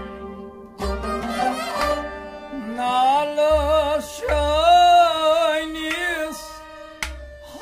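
Harmonium playing held chords, with low hand-drum beats. About two and a half seconds in, a man starts singing a long, wavering melodic line over them.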